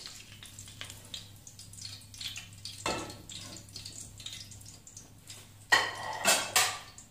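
Hot oil faintly sizzling and crackling in an aluminium pot as fried onions are scooped out with a slotted spoon, with a few louder clatters near the end.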